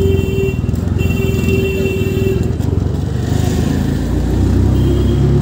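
Auto-rickshaw engine running and the three-wheeler rattling along, heard from inside the open passenger cabin. A steady tone comes and goes in the first half, and the engine's low rumble grows louder about four seconds in.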